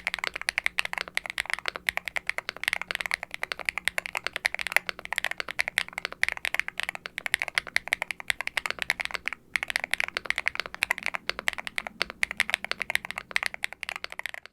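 Fast typing on a Hex80 mechanical keyboard with Owlab Ti HE linear switches (nylon bottom, polycarbonate top housing, POM stem) under double-shot ABS keycaps on a carbon-fibre plate, foam-dampened: a deep, clacky run of keystrokes. The typing stops briefly about nine seconds in, then carries on.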